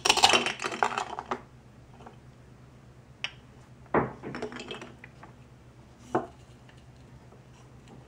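Plastic toy knife cutting through a velcro-joined toy cantaloupe: a crackling rip of velcro as the halves part, the loudest sound. Then a sharp plastic click with a brief rattle about four seconds in and another short knock about two seconds later as the plastic pieces are handled.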